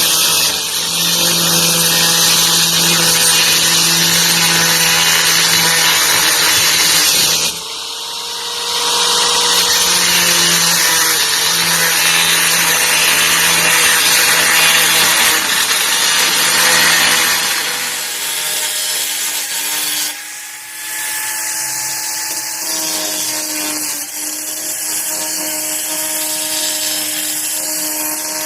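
A Titanium AG710 710 W angle grinder runs under load, its disc grinding against a workpiece with a steady motor hum under a loud hiss. The load eases briefly at about seven and a half seconds. After about eighteen seconds the sound turns lighter and quieter as the load drops off.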